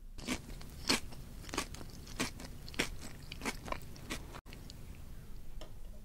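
A mouthful of chocolate Cheerios being chewed, loud sharp crunches about twice a second, growing fainter after about four seconds.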